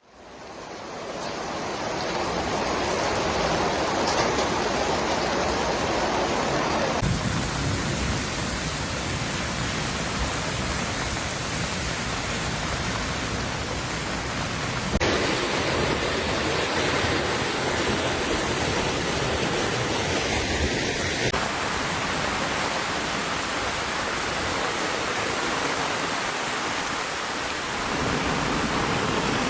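Torrential rain and rushing water, a steady dense hiss that fades in at the start. The sound changes abruptly about 7, 15 and 21 seconds in, where one clip of the downpour gives way to another.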